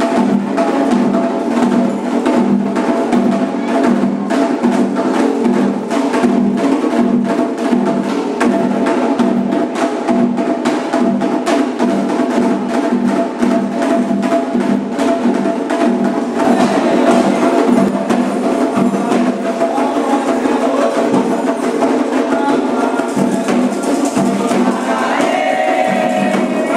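Candomblé ritual percussion: drums and hand percussion playing a fast, steady, dense rhythm. Voices start singing near the end.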